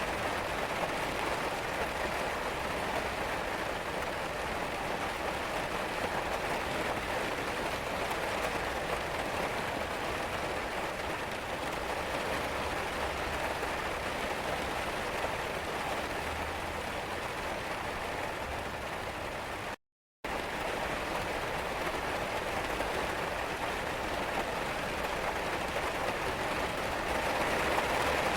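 Steady rain falling and pattering on surfaces. It cuts out completely for a split second about two-thirds of the way through, then goes on unchanged.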